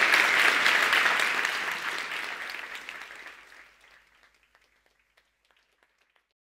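Audience applauding at the end of a talk, many hands clapping at once, fading away over the first four seconds and trailing off into a few scattered claps.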